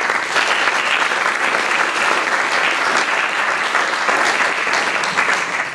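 Audience applauding a welcome in a large lecture hall, starting at once and dying away near the end.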